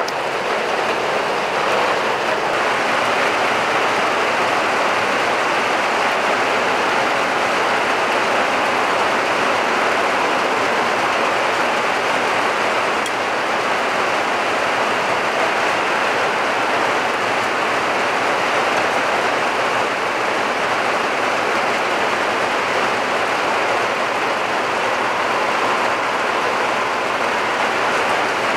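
Steady rain, an even, constant hiss with no breaks.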